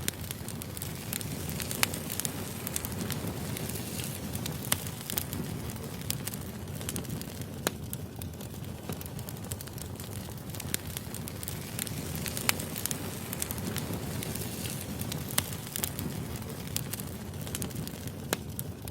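Firewood burning: a steady low rush of flames with irregular sharp pops and crackles from the logs.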